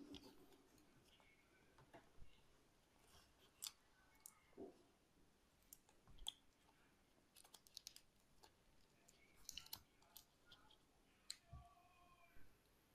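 Faint, irregular small clicks and taps from fingers and tweezers handling the plastic body and new screen of a Xiaomi Mi Band 6 as they are pressed together.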